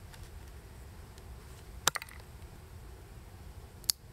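Two sharp cracks about two seconds apart as a knife blade is pressed into a small piece of bone to split it.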